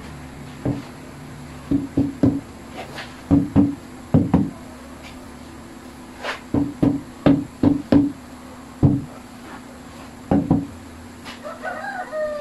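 Rubber mallet tapping a stainless-steel drop-in kitchen sink down into its countertop cutout to seat it flush with the tiles. About twenty dull knocks come in irregular clusters of two to four, each with a short low ring from the sink.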